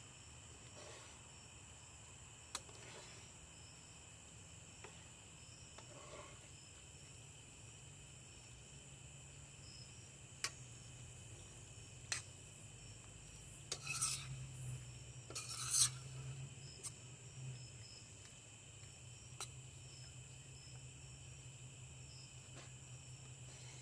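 A slotted metal spoon scraping and clinking against a stainless steel frying pan as a chicken and vegetable stir-fry is stirred, with two louder scrapes about 14 and 16 seconds in and scattered single clicks. Crickets chirp faintly throughout over a steady low hum.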